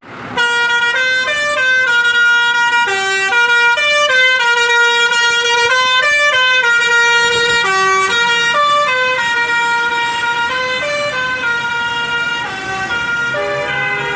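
Tour bus basuri telolet horn playing a long melody, stepping from note to note about every half second.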